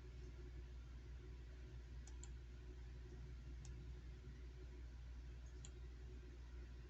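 Ceiling fan running with a low steady hum and a handful of faint, irregular clicks.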